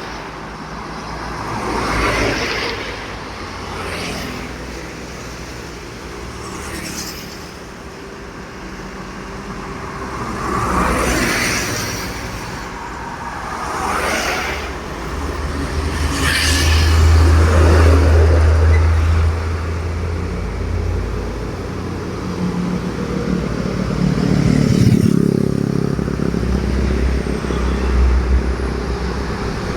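Road traffic passing one vehicle after another, with a heavy truck's engine running loudest about halfway through and again near the end.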